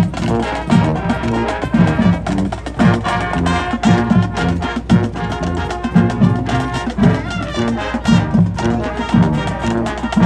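High school marching band playing brass with drums and percussion, over a steady driving beat.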